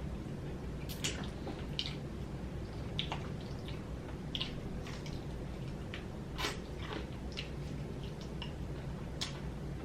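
A person chewing and biting fried chicken wings close to the microphone, with irregular wet smacks and clicks every second or so over a steady low hum.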